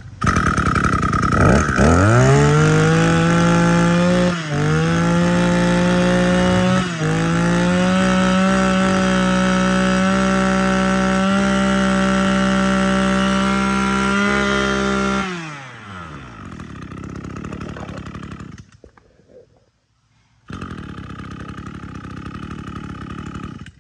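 Two-stroke engine of a 23cc Echo (Kioritz) brush cutter. It starts and revs up to full throttle in about two seconds, dips briefly twice, and holds high revs until about fifteen seconds in. The throttle is then released and the engine drops back to a lower, quieter running speed.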